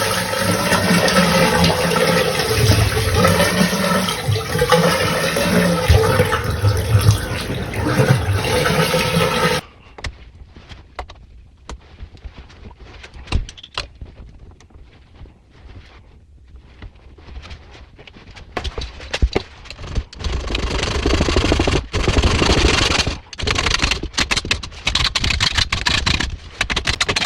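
Water rushing hard through plumbing with a wavering tone, cutting off abruptly about ten seconds in. Then come scattered clicks and handling knocks, and near the end another louder rush of noise broken by sharp knocks.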